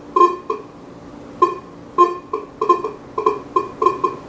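White's Coinmaster GT metal detector with an NEL Tornado search coil giving about a dozen short, irregular target beeps. Each beep sounds as a clad quarter is moved past the coil at about 10½ to 11 inches in an air test, near the limit of its detection depth.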